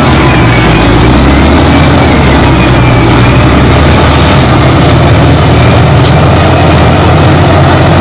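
Shantui wheel loader's diesel engine running at a steady, loud low pitch as the loader creeps forward over the dirt.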